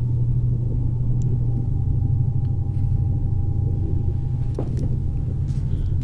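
A low, steady rumbling drone with a faint, thin, steady high tone above it: ominous sound-design atmosphere for a thriller, with a small faint knock near the end.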